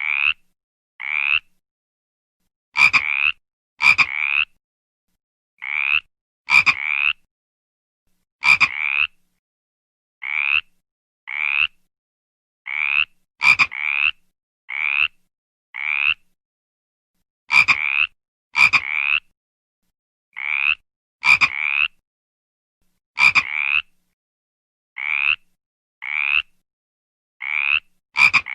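Frog croaking: short calls, each rising slightly in pitch, often in pairs and spaced a second or two apart, with dead silence between them.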